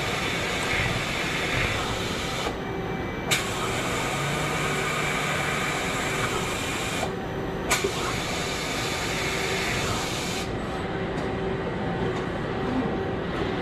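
Mazak QT-Primos 100 SG CNC turning centre running a cut on aluminium, a steady machine noise with coolant hiss and a faint steady hum. The hiss cuts out briefly twice, each time coming back with a sharp click.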